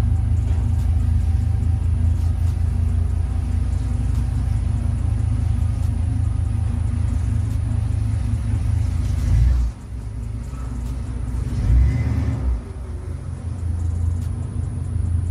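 Car engine idling with a deep, steady rumble. It dips briefly about ten seconds in and again near twelve and a half seconds.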